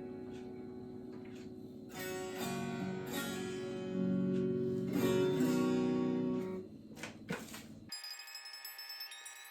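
Guitar chords strummed and left to ring, with fresh strums every second or so, fading out after about six and a half seconds. A few clicks follow, then different music with high, thin notes cuts in near the end.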